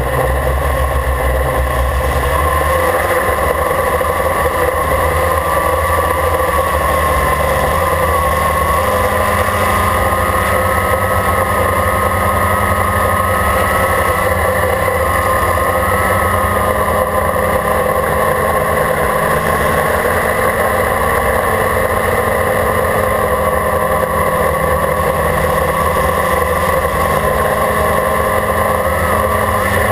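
Quadcopter's electric motors and propellers buzzing steadily in flight, heard from on board. A whine that drifts slightly up and down in pitch sits over a low rumble.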